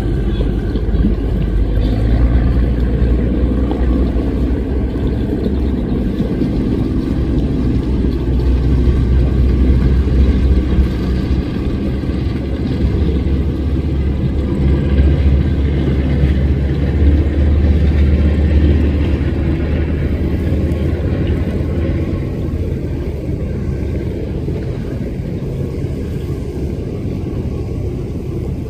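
High-powered speedboat engines running under way: a loud, steady deep rumble that swells and eases a little, dropping somewhat about three quarters of the way through.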